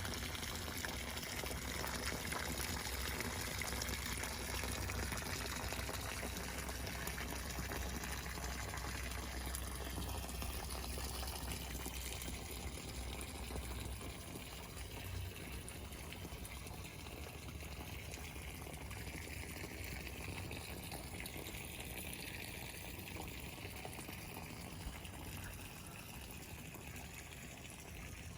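Water running or pouring steadily, easing off a little in the second half.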